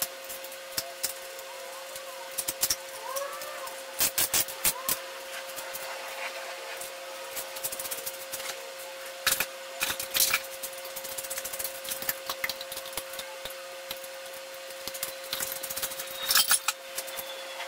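Scattered clicks, clanks and knocks of hand tools and strut parts being handled, in bunches a few seconds apart, over a steady hum.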